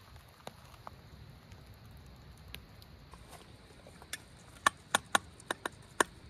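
Knife blade clicking and tapping against a small steel bowl while cutting cooked chicken: a quick run of sharp metallic clicks starting about four seconds in.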